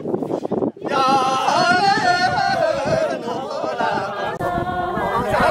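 Several voices singing an unaccompanied traditional Ngari circle-dance song, coming in about a second in with gliding, drawn-out notes.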